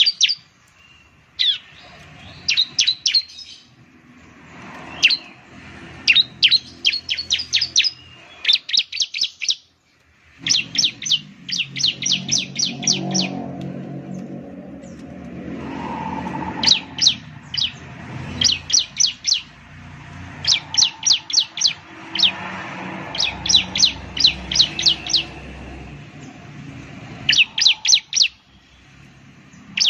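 Bar-winged prinia (ciblek) singing: quick bursts of sharp, high, rapidly repeated chirps, each burst lasting a second or two and coming again every few seconds. A faint low hum sits underneath.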